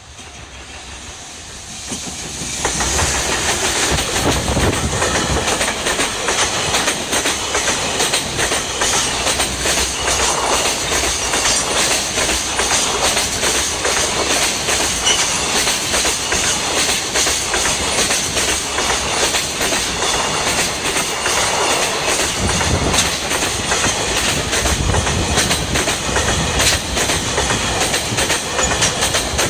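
Long freight train passing: it grows loud about two seconds in, then a steady run of wagon wheels clacking over the rail joints.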